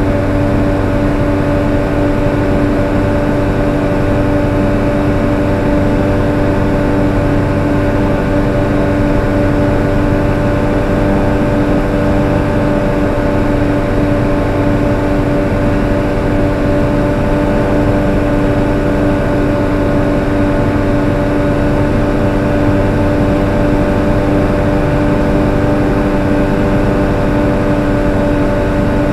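ARV Super 2 light aircraft's engine and propeller droning steadily in flight, heard from inside the cockpit, with an even, unchanging pitch.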